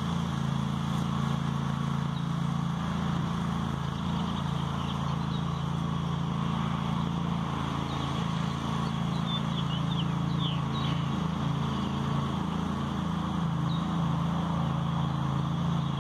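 Ingersoll 7020 garden tractor's engine running steadily as it pulls a two-bottom trip plow through sod, with a few bird chirps in the middle and near the end.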